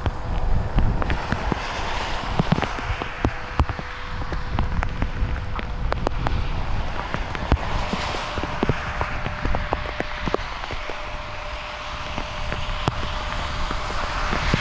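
Steady rain with wind rumbling on the microphone and frequent sharp ticks of drops striking close by. A faint steady hum runs underneath.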